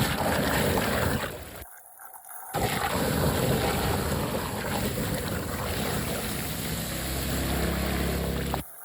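Floodwater rushing and churning into a drain. It cuts out briefly about two seconds in, then resumes.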